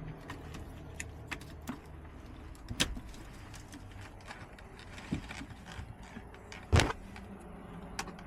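Scattered clicks and knocks of hands and tools working on the car's ignition and steering-column parts, with one louder knock about seven seconds in and a smaller one near three seconds.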